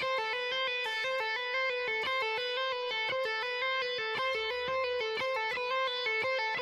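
A guitar playing a short fast phrase of single notes over and over, in a quick even rhythm.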